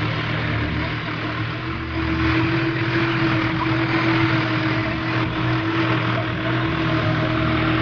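New Holland tractor's diesel engine running steadily as the tractor is driven, heard from the driver's seat, with a steady hum that gets a little louder about two seconds in.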